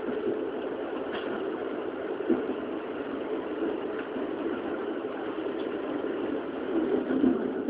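Keikyu New 1000 series electric train running steadily, heard from inside the car: an even rumble of wheels on rail with a couple of faint clicks.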